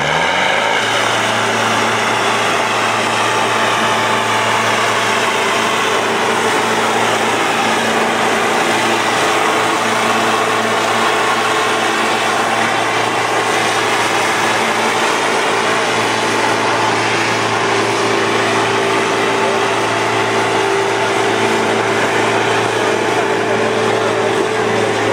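Diesel tractor engines of a Mahindra Arjun 605 and a Swaraj 855 revved up to full throttle and held there at a steady pitch as they pull against each other in a tug-of-war, the engines straining under heavy load. The revs drop away near the end as the pull finishes.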